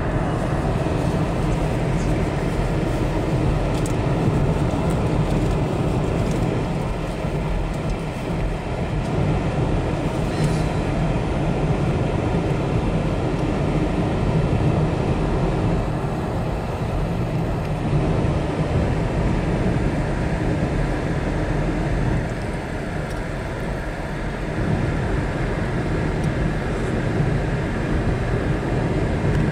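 Car driving at highway speed, heard from inside the cabin: a steady low road rumble with no breaks.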